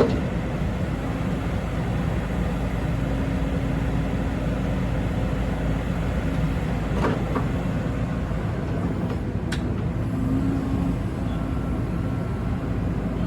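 Diesel engine of a Kobelco SK85 midi excavator running steadily, a constant low hum with a couple of faint clicks partway through.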